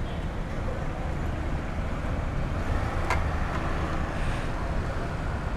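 Steady low rumble of outdoor background noise, with a single sharp click about three seconds in.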